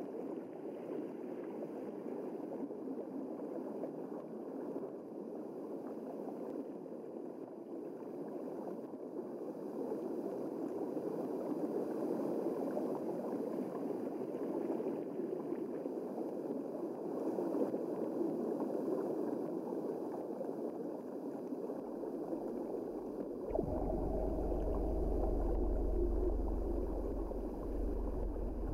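Steady rushing water noise recorded underwater. About three-quarters of the way through, a low steady hum joins it.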